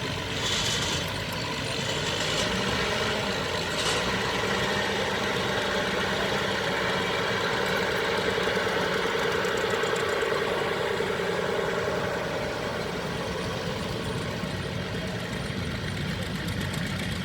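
Tractor engine running steadily, growing a little louder through the middle and easing off again near the end.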